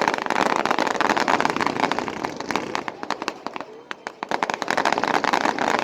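Fireworks crackling: a dense, rapid run of sharp pops that thins out about three seconds in and picks up again near the end.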